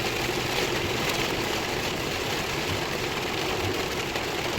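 A car driving on a wet road in heavy rain: a steady rush of rain and tyre and road noise, with no break or change.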